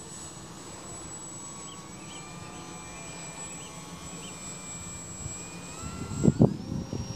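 Electric motor and propeller of a Dynam Tiger Moth radio-controlled biplane whining steadily in flight, the whine rising in pitch about six seconds in. A few loud low thumps come near the end.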